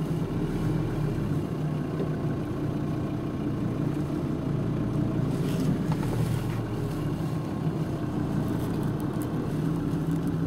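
A vehicle engine idling steadily, a continuous low hum.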